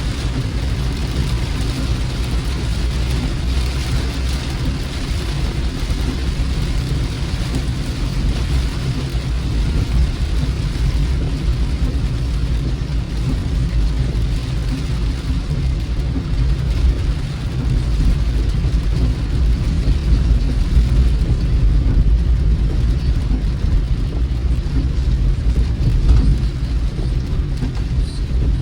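Car driving in the rain, heard from inside the cabin: a steady low road-and-engine rumble under an even hiss of rain and wet road.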